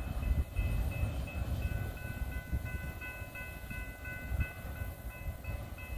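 Double-stack container freight train rumbling away down the track, low and slowly fading, with faint high steady tones coming and going over the rumble.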